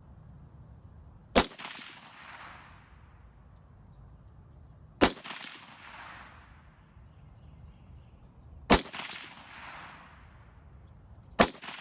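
Four single rifle shots from an AR-15-style rifle firing supersonic rounds, spaced about three and a half seconds apart, each followed by a rolling echo that fades over about a second.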